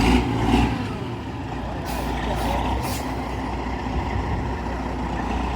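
Heavy truck engine running steadily, with a few brief hisses of air about two to three seconds in.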